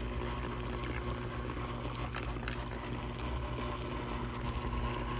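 A live TV cable converter circuit board sitting in salt water gives a steady low electrical hum with a faint fizzing hiss and a few small ticks, as current leaks through the water around its wiring and transformer.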